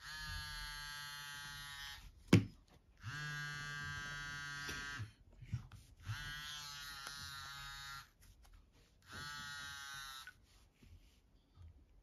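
Philips 162 mobile phone sounding a buzzing alert in four bursts of about two seconds each, with short gaps between them. A single sharp knock, the loudest sound, comes just after the first burst.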